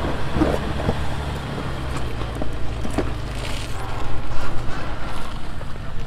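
Off-road vehicle's engine running steadily at low speed, with a few sharp knocks.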